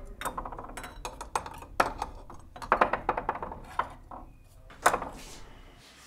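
Glass jars clinking and knocking against one another and the wooden shelf as they are shifted about, a string of sharp clinks with a louder one near the end.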